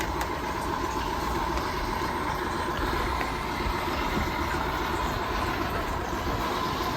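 Yeedi vac robot vacuum cleaner running steadily, its suction fan and drive making a constant whirr with a faint whine, as it heads back to its charging dock on the return-to-charge command.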